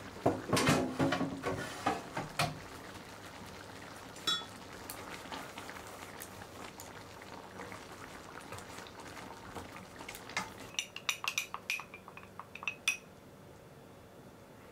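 A wooden spatula stirs thick simmering curry in a frying pan, knocking and scraping against the pan in a burst of clatter at the start. Near the end comes a quick run of ringing clinks from the small glass bowl of water-mixed potato starch that goes in next.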